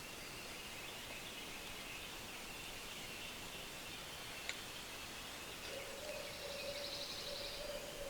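Songbirds singing faintly in the woods at dawn, with a single sharp click about four and a half seconds in. Later, a fast, high trill and a low steady note come in together.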